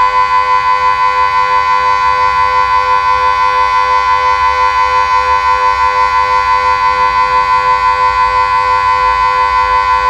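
Delta 6-Blau civil-defence siren holding a steady, unwavering tone for the Austrian 'Warnung' signal, the long constant-pitch alert. The loudness flutters quickly and regularly throughout.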